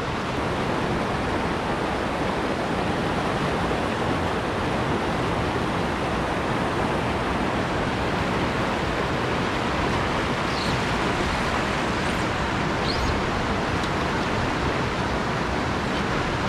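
Steady rush of a small mountain stream tumbling over rocks and cascading into a pool. Two faint, short high chirps are heard about two-thirds of the way through.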